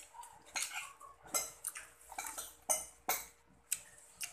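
Eating sounds: a metal spoon clinking and scraping against a ceramic bowl while she chews, heard as a string of short, sharp clicks.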